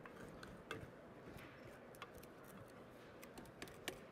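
Near silence with faint, scattered clicks and taps, a few sharper ones near the end: a wooden spoon knocking and scraping against a glass mixing bowl as crumbly tart dough is stirred by hand.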